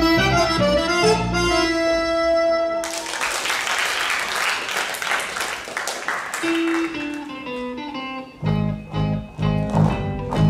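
Breton traditional dance music. A melodic, chord-backed tune with a full bass gives way about three seconds in to a sudden hiss of noise lasting about three seconds, then a few held notes. From about eight seconds in a new passage starts with a steady pulsing beat of about two a second.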